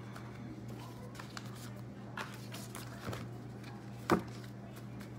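A thick deck of tarot cards being shuffled by hand, with soft rustling and light taps of the cards against each other and one sharper snap about four seconds in. A steady low hum runs underneath.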